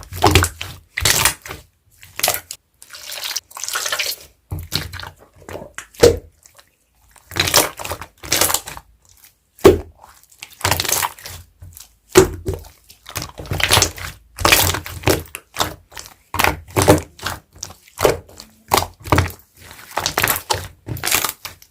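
Slime being squished, pressed and stretched by hand: an irregular run of sticky, wet squelches, clicks and pops, several of them loud and sharp.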